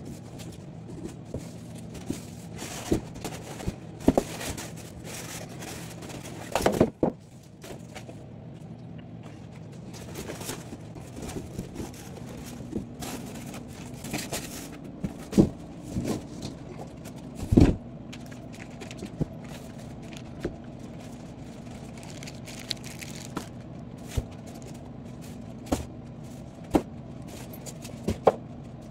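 A large TV box being unpacked: cardboard scraping and sliding, and foam packing blocks and plastic wrap being handled, with scattered knocks and a few heavier thumps. A steady low hum runs underneath.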